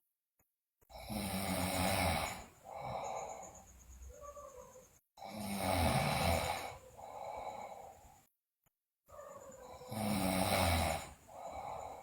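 A sleeping girl snoring loudly in a steady rhythm, three breaths about four seconds apart. Each is a loud, rough snore followed by a quieter, breathier sound, with a short silence before the next.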